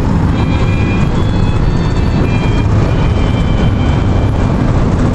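Steady road and wind noise inside a car cabin while driving on the interstate.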